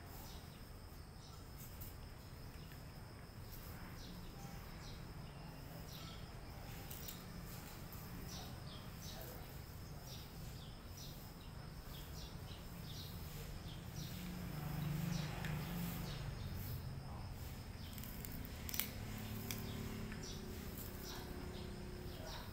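A cat chewing and licking pieces of pasta from a plastic plate: scattered small wet clicks and smacks, with one sharper click near the end.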